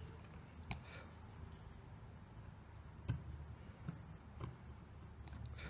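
Faint, scratchy clicks of a craft knife blade cutting chips out of a wooden block in chip carving, a handful of separate cuts about a second apart.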